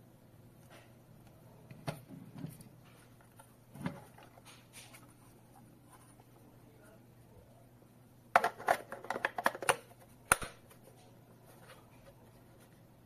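Handling noises from a hard-plastic mini thermal receipt printer and its rechargeable battery pack: a few light knocks, then about 8 seconds in a quick run of plastic clicks and rattles ending in one sharp click, as the battery is fitted into the printer's battery compartment.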